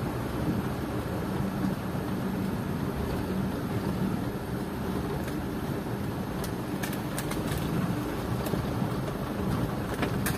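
Isuzu Elf NKR71 light truck's four-cylinder diesel engine running steadily under way, heard from inside the cab, with a few sharp clicks from about halfway on.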